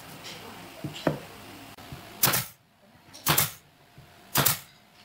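Brad nailer firing three times, about a second apart, driving nails into a pine board; each shot is a sharp crack with a brief tail. A couple of light knocks come just before the first shot.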